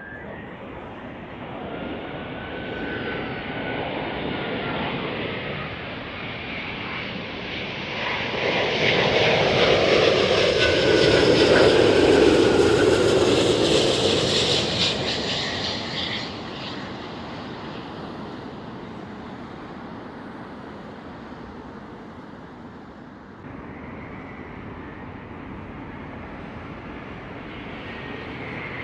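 Airbus A350-1000 on final approach passing close overhead, its Rolls-Royce Trent XWB turbofans making a jet roar. The roar swells to a peak about halfway through, with faint whining tones sliding down in pitch, then fades away. Near the end a second A350's roar starts to build as it approaches.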